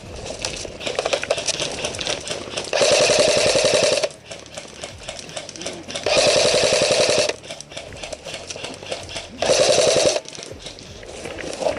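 Airsoft electric gun firing on full auto in three bursts, the first two just over a second long and the last shorter, each a fast, even rattle of shots.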